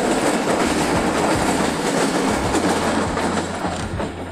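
Passenger train running along the track, heard from a coach window: a steady rumble of wheels on rails with irregular clicks at the rail joints.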